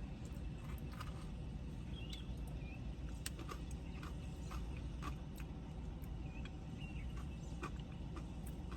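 Eating sounds: scattered short clicks and smacks of chewing over a steady low hum.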